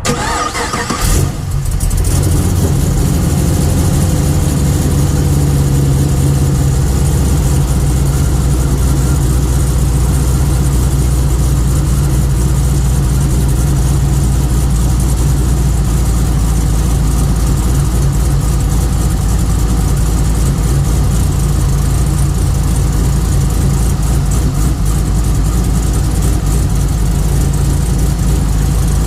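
Pontiac G8 GT's 6.0 L L76 V8 catching with a brief flare about a second in, then idling steadily.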